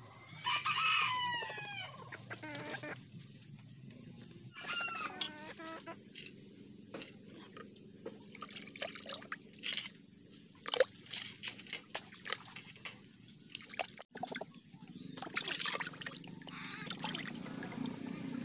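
A chicken calls twice: a long falling call about half a second in and a shorter one around five seconds in. Then come irregular small splashes and clicks as small fish are washed by hand in a bucket of water.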